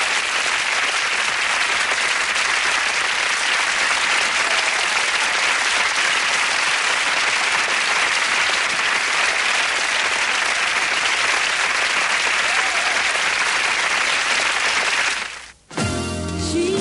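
Sitcom audience applauding steadily, cut off suddenly about fifteen and a half seconds in; music starts just before the end.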